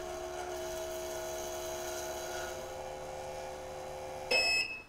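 Dental capsule mixer (triturator) shaking a Biodentine capsule with a steady hum through its mixing cycle. The hum stops a little past four seconds in, and a short electronic beep follows as the cycle ends.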